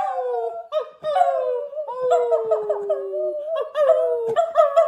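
A small dog and a person howling together in long, wavering howls, their two voices overlapping and sliding in pitch.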